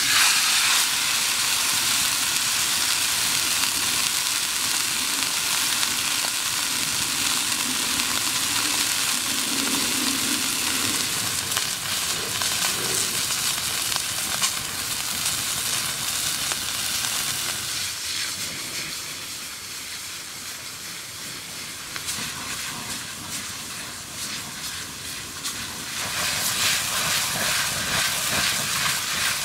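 Thick buffalo steak laid into a hot oiled pan, setting off a sudden loud sizzle that carries on steadily as the meat sears. The sizzle eases off somewhat past the middle and swells again near the end.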